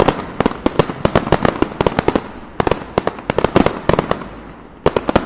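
Firecrackers going off in rapid, irregular succession: many sharp bangs a second, thinning out briefly about four seconds in before picking up again.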